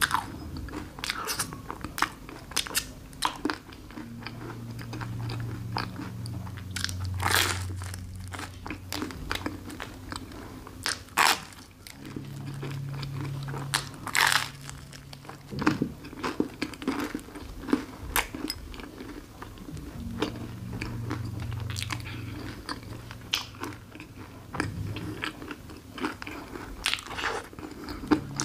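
Close-miked eating of a crisp waffle with whipped cream: sharp crunches as it is bitten, every few seconds, between quieter wet chewing.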